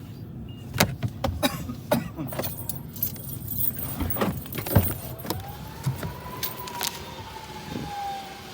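A vehicle pulling up, with its steady low running sound and many sharp clicks and knocks. In the second half a single tone rises and then slowly falls.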